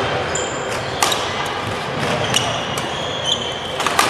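Badminton rally on a wooden indoor court: rackets strike the shuttlecock with sharp cracks, about a second in and again near the end, while sneakers squeak on the floor.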